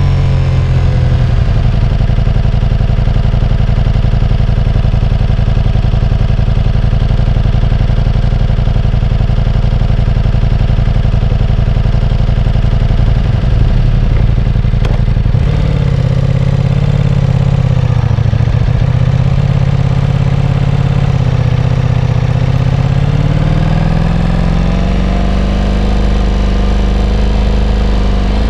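Ducati Diavel V4's V4 engine running at a steady pitch; about halfway through the pitch drops and wavers, then climbs back up near the end.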